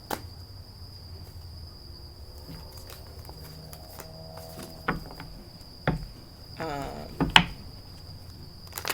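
A steady, thin, high-pitched tone over a low hum, with scattered sharp clicks and taps, one about halfway through and a few more close together near the end.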